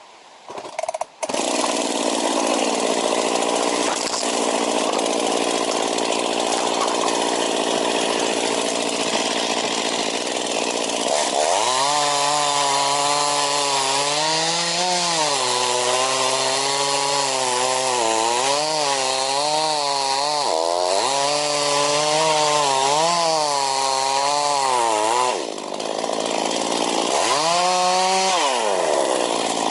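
Chainsaw running under load as it cuts a thick fallen tree trunk. It starts about a second in, and its engine note rises and falls with the cut. The note drops briefly near the end, then climbs again.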